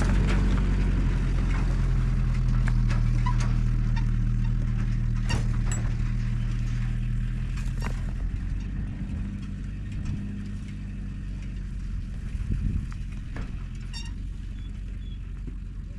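Zamyad pickup truck's engine running as it drives away over a gravel track. The hum fades steadily as the truck pulls off, with a few short clicks and rattles along the way.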